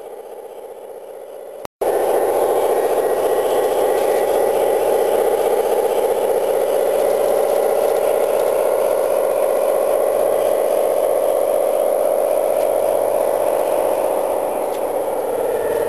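Garden-scale model diesel locomotive and coaches running past close by: a steady mechanical whirring and rattling from the loco's motor and the wheels on the track, starting abruptly about two seconds in.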